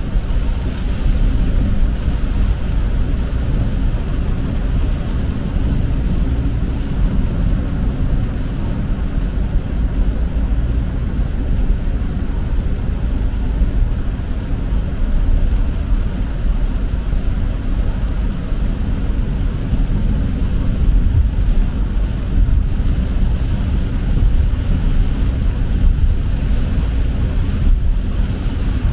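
Steady low rumble inside a car's cabin while driving on a wet highway: tyre and road noise with the engine.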